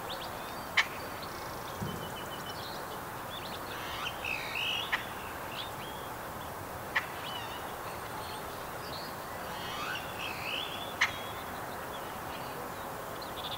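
Birds chirping and singing, with short calls and rising-falling phrases, over a steady background noise, broken by a few sharp clicks at irregular intervals.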